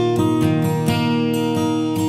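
Background music: acoustic guitar strummed and picked in a gentle, steady pattern.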